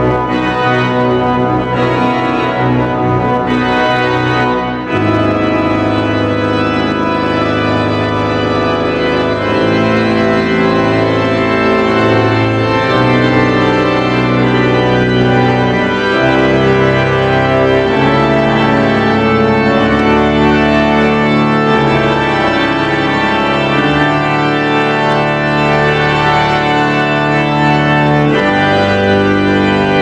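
Walt Disney Concert Hall pipe organ playing loud sustained chords that change every few seconds, with a deep bass note entering about five seconds in.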